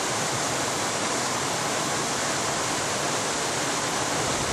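Steady, even rushing noise with no other event.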